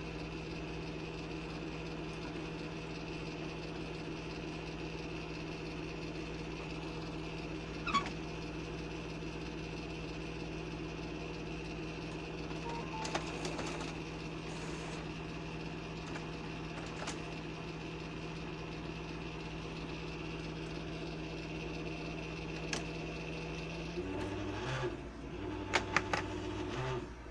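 HP Officejet 6500A inkjet printer mechanism running with a steady whir. Near the end the print carriage motor moves the carriage into the open bay, with pitch steps and a few sharp clicks.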